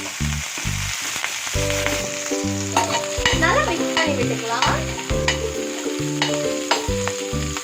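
Green chillies sizzling and frying in hot oil with mustard seeds and cumin in a pan, with a few clicks of stirring, over background music.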